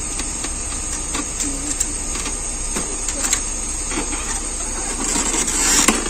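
Light clicks and taps of plastic and metal parts being handled inside an opened, unplugged inkjet printer over a steady hiss, with a denser, louder rustle of handling about five seconds in.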